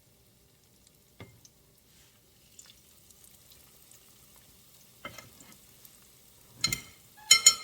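Breaded chicken cutlets frying in hot oil with a faint, steady sizzle. It is broken by a few clicks and, near the end, two loud metallic clinks that ring briefly.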